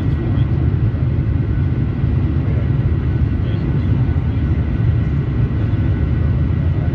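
Jet airliner cabin noise in the climb: a steady, deep rumble of engines and airflow, with a faint steady whine on top, heard from a window seat.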